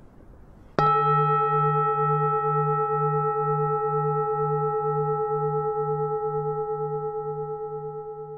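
A bell-like metal tone struck once about a second in, then ringing on and slowly fading, with a slow wavering pulse about twice a second.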